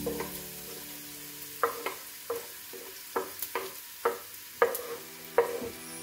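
Wooden spatula scraping and knocking chopped garlic off a wooden chopping board into a stainless steel pot: a string of sharp taps from about a second and a half in. Onions fry faintly in the pot underneath.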